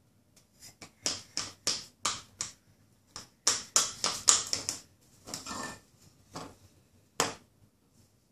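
A small plastic spoon tapping and clattering in a plastic cup: an irregular run of sharp clicks, thickest in the middle, ending with a single tap and then stopping.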